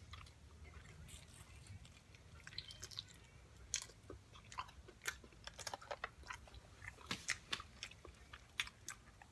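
A person chewing and biting food close to the microphone: faint wet mouth sounds and sharp crunchy clicks, sparse at first and coming thick and fast from about a third of the way in.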